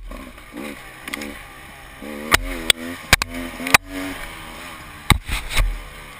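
Off-road motorcycle engine revving, its pitch rising and falling with the throttle, with several sharp knocks and clatters over the run.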